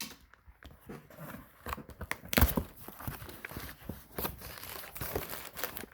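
Cardboard box and packing material being pulled open and handled: irregular tearing, rustling and crinkling with many small clicks, and one sharp knock about two and a half seconds in.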